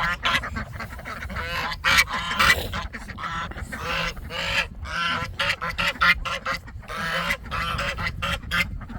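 A flock of domestic geese honking, many short calls in quick succession.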